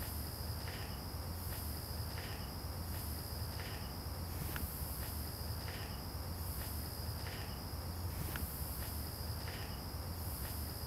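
Insects chirping steadily in a high, repeating pattern, over a low steady hum.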